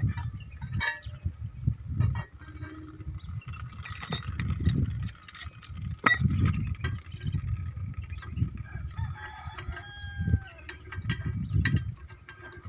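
A rooster crowing once, about nine seconds in, over uneven low rumbling and scattered sharp clicks and knocks.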